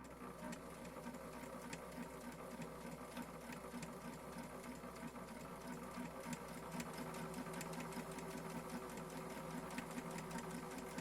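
Janome 525S sewing machine running under foot-pedal control and stitching: a steady motor hum with fast, even needle-stroke ticking that starts abruptly and keeps going.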